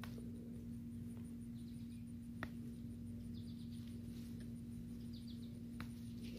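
Quiet garden sounds under a steady low hum: a few bursts of short, rapid high chirps from a small bird, and a couple of sharp snaps as chili pepper leaves are picked by hand.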